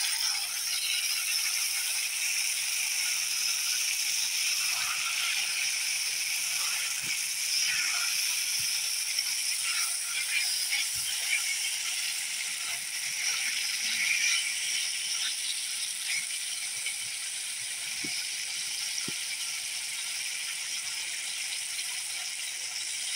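Chopped beef sizzling in hot oil and fried spice paste in a wok, the hiss jumping up as the meat goes in and easing slightly in the second half. A few short knocks and scrapes come from a wooden spatula stirring the meat.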